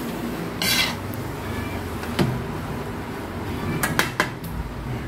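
Metal spatula scraping and knocking against a metal wok while glass noodles are stir-fried, a few separate strokes over a steady hiss. A cluster of quick knocks comes near the end.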